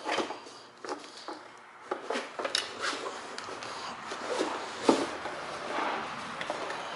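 Parts and packaging being handled and rummaged through: scattered knocks and clicks, the loudest about five seconds in, over a steady rustling.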